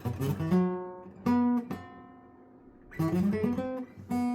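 Guitar playing a short phrase of single notes from an F minor pentatonic shape, pulled off to the open strings, with the last note left ringing. It pauses for about a second midway.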